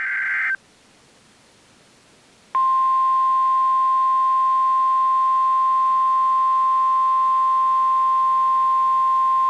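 NOAA Weather Radio alert signalling: a short buzzy burst of SAME digital data tones that stops half a second in, a brief pause of faint hiss, then the steady 1050 Hz warning alarm tone starting about two and a half seconds in. That tone marks a warning about to be read.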